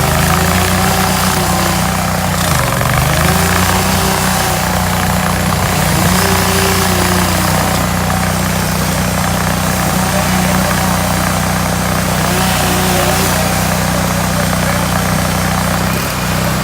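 Hydraulic stump grinder running steadily, with a whine that rises and falls back about every three seconds over the engine note.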